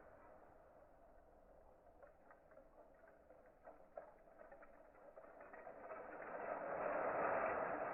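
Bamboo chopsticks clicking and rattling against each other. Scattered small clicks build into a denser rattle that swells near the end.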